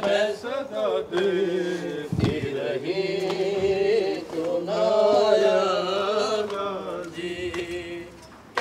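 Male voice chanting a noha, an Urdu Shia lament, in long drawn-out lines with no instruments; it fades away near the end.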